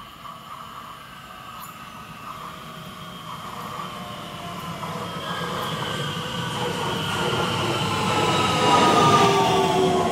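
Bombardier Talent 2 electric multiple unit (DB class 1442) approaching and running in alongside the platform. Its rumble grows steadily louder, and several electric whining tones slide down in pitch as it comes near.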